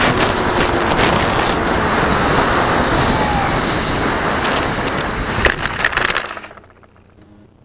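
Airflow rushing over the onboard camera of a Firstar 2000 FPV plane gliding low over grass. About five and a half seconds in come a few sharp knocks and scrapes as it touches down and slides through the grass to a stop, and then the rushing cuts off to a faint background.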